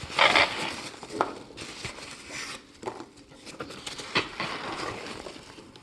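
Packing material rustling and crinkling as it is pulled out of a cardboard shipping box, with scattered light knocks and clicks, loudest just after the start.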